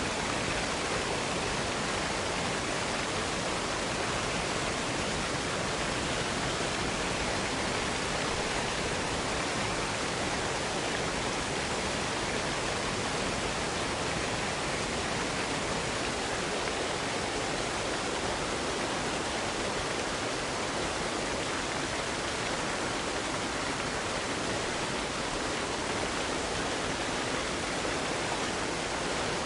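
Waterfall: a steady, even rush of falling water with no let-up.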